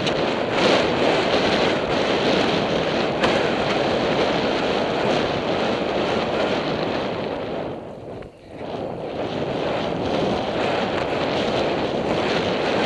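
Wind rushing loudly over a helmet-mounted camera's microphone while the horse gallops, easing off briefly about eight seconds in.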